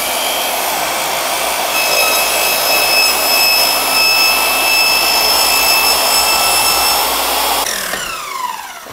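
Trend MS184S2 battery mitre saw running at full speed with a steady whine as the spinning blade is brought down to cut through masking tape on the saw bed. Near the end the trigger is released and the motor winds down, its whine falling away.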